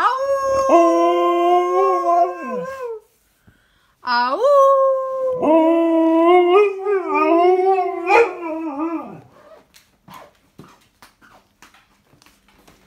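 Alaskan malamute 'talking': two long howling calls, the first about three seconds, the second opening with a rising glide and wavering up and down in pitch for about five seconds. Faint scattered clicks follow.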